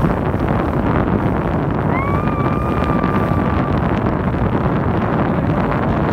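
Wind buffeting the microphone over the steady rush of a boat under way across choppy water. About two seconds in, a thin whistle-like tone rises briefly and holds level for under two seconds.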